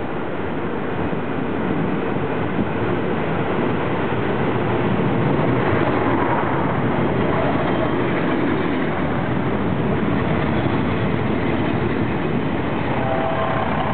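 Diesel multiple-unit passenger train arriving and running past close by, a steady rumble and clatter of wheels on rail that builds over the first few seconds as it draws level. A faint thin squeal comes in near the end.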